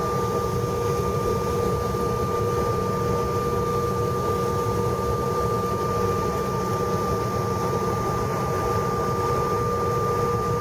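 Steady cabin noise inside a regional jet taxiing on the ground: a low rumble and airy hiss with two steady whining tones, one mid-pitched and one higher.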